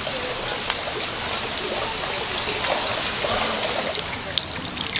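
Water from a small garden waterfall splashing and trickling in a steady rush, with a few sharper splashes near the end.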